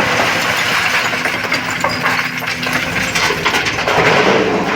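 Excavator working loose rock: stones clattering and scraping against the steel bucket in a dense run of irregular clicks and grinding, over a steady diesel engine hum.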